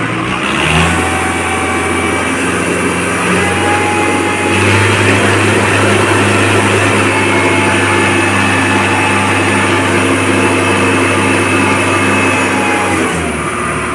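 Mahindra Arjun 555 DI tractor's diesel engine revved up in two steps, held steady at high rpm, then easing back about a second before the end. The tractor is modified to rev higher than stock.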